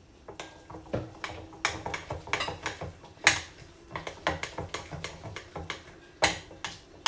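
Utensil knocking and scraping against a mixing bowl as heavy cream is worked into thick muffin batter: irregular clinks and knocks, with a sharp clack about three seconds in and another near the end.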